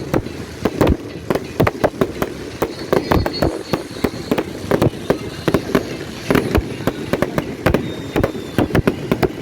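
Fireworks going off in a dense, irregular barrage of sharp bangs and cracks, several a second.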